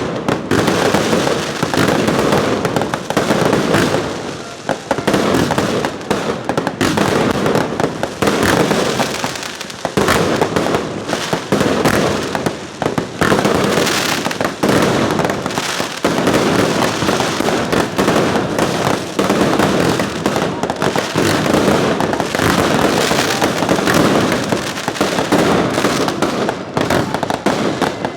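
Fireworks display at full pace: a dense, continuous barrage of aerial shell bursts and crackling, bang after bang with no pause.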